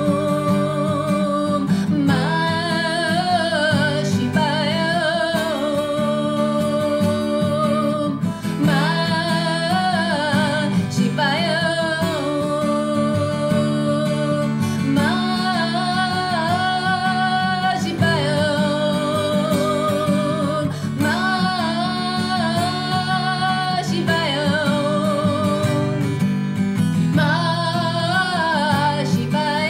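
A woman singing a slow melody with vibrato, accompanied by acoustic guitar.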